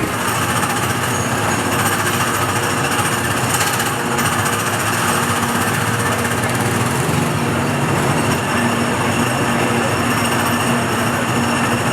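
Tomorrowland PeopleMover ride car running along its elevated track: a steady, loud rumbling with a faint hum underneath.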